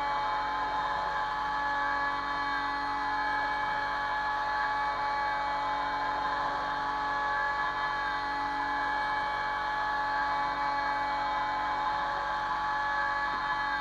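Kress FME 800 spindle on a Stepcraft 2/420 CNC router running steadily at about 11,000 rpm with a constant high whine, its cutter milling aluminium.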